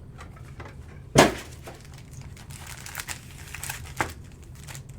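Trading card packaging being handled on a table: one sharp knock about a second in, then a few lighter clicks and rustling.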